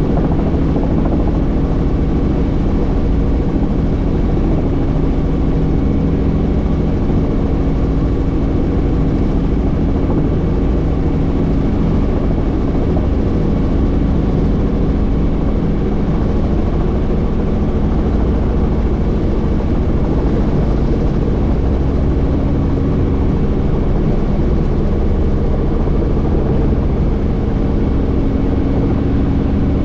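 Helicopter engine and rotor running steadily, heard from on board the doors-off cabin, with a steady low rumble under several held tones and rushing air.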